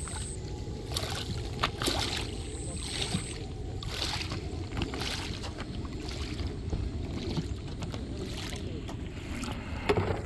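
Water sloshing and splashing against the hull of a hand-held RC model boat in the shallows, in irregular splashes over a steady low rush, with a louder splash near the end as the boat is lifted out of the water.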